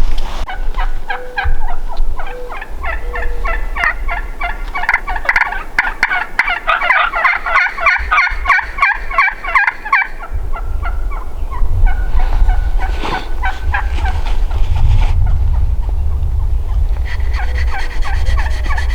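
Wild Merriam's turkeys gobbling, a run of rapid rattling gobbles that peaks in the middle and then comes back in weaker bouts. A low rumble underlies the second half.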